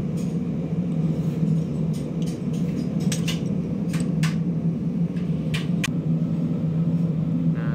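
Steady low machine hum throughout, with scattered light metallic clicks as brake shoe parts and small springs are handled.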